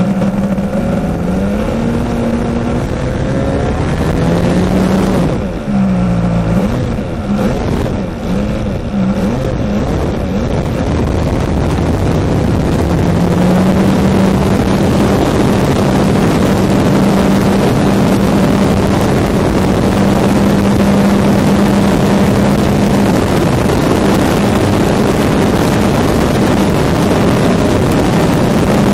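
RC model airplane engine heard close up from a camera mounted on the plane. It revs up and down unevenly for the first ten seconds or so, then holds a steady high throttle through the takeoff run and into flight, with rushing air noise growing over it.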